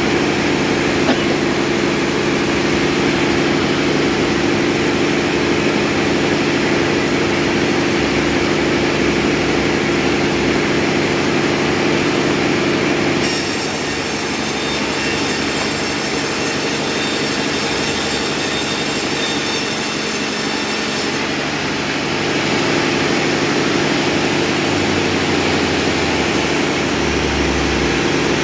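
A motor running steadily with a level hum. From about 13 to 21 seconds in, the tone shifts and a high hiss joins it, then the first hum returns.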